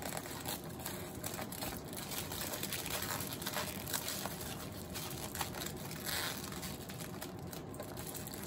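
Aluminium foil crinkling as hands fold and crimp the edges of a foil packet shut, a steady run of small crackles.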